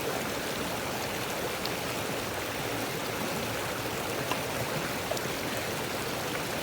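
A small mountain stream flowing steadily: an even, unbroken rush of water.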